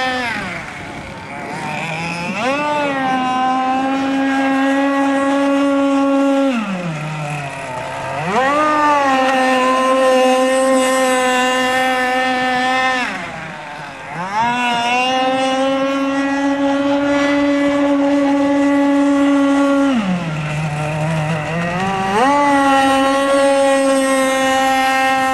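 Radio-controlled racing powerboat's engine screaming at a steady high pitch. Four times it drops sharply in pitch, then climbs straight back up to full revs.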